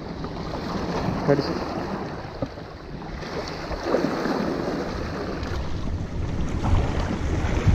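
Small waves washing and splashing against the rocks of a breakwater, with wind buffeting the microphone in a low, steady rumble.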